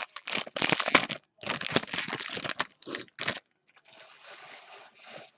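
A trading-card pack's wrapper being torn open and crumpled: loud crinkling in several bursts over the first three seconds, then fainter rustling.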